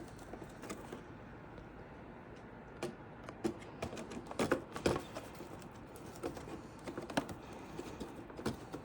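Scattered light clicks and taps of hands handling PC components, with a few louder knocks about halfway through.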